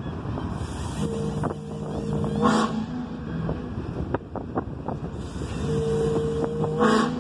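Two long blasts of a multi-tone horn, each about a second and a half and each ending in a short louder burst, over a rumbling outdoor background.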